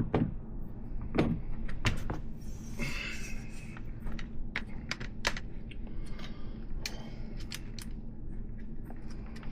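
Irregular metallic clicks and clinks of a wrench working the nuts on a BMX hub's 3/8-inch axle, breaking loose two nuts jammed tight against each other.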